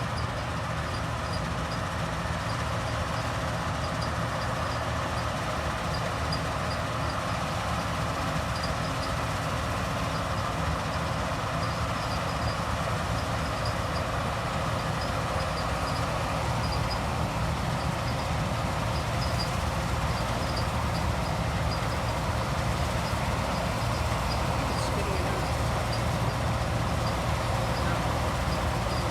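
Steady drone of heavy harvest machinery running continuously, with a faint, regular ticking high above it.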